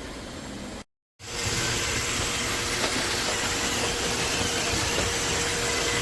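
Low background hum, cut off by a brief silent gap about a second in. Then a Roomba robot vacuum runs with a steady whirring and a constant tone.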